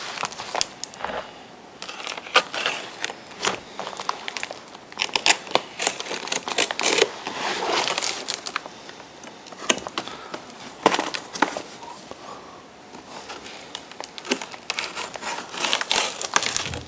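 Clear plastic packing tape and cardboard of a large parcel crackling and crinkling as a craft knife slits the tape along the box's edges and hands shift the box, with many irregular sharp clicks and scrapes.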